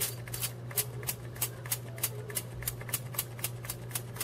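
Lemon juice sprayer screwed into a lemon, its plastic pump nozzle pressed over and over, giving short spritzes about four times a second.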